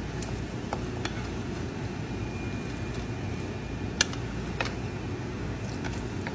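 Wooden spatula pushing chunks of meat from a skillet into a pot of broth, with a few sharp knocks of the spatula against the pan, the loudest about four seconds in, over a steady low rumble.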